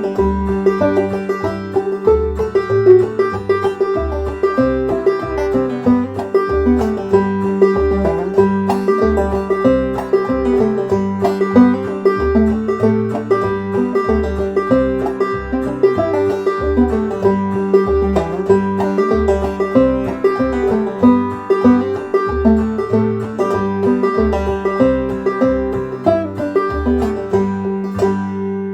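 Clawhammer banjo playing an old-time fiddle tune, a high drone note ringing steadily under the melody, over a Strum Machine backing track whose bass notes keep a steady, even beat.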